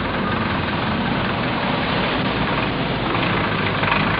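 Small car's petrol engine idling steadily while the car waits at a junction, a low even hum.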